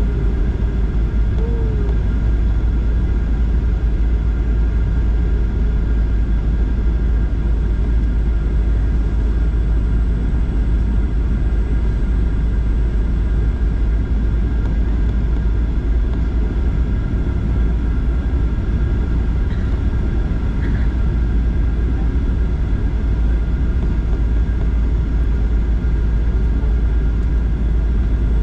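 Airliner cabin noise in flight: a steady deep rumble of engines and rushing air, with a constant whine of several high steady tones over it.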